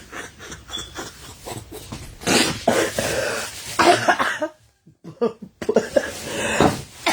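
A person coughing in two hard fits with some throat clearing, the first starting about two seconds in and the second after a short break.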